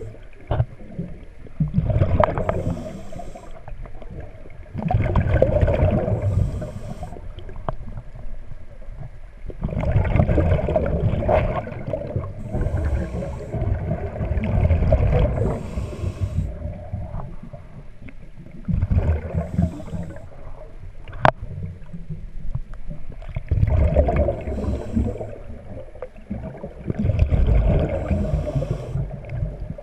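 Scuba diver breathing through a regulator underwater: a hiss on each inhalation, then a gurgling, rumbling burst of exhaled bubbles, one breath every few seconds. A single sharp click about two-thirds of the way through.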